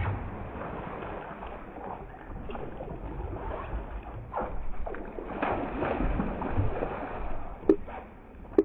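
Water splashing and sloshing beside a bass boat as a hooked bass is fought at the boat, with two sharp knocks near the end.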